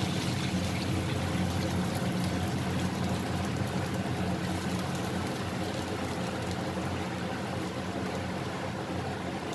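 Steady roar and low hum of a gas wok burner, with vegetables sizzling in the hot wok.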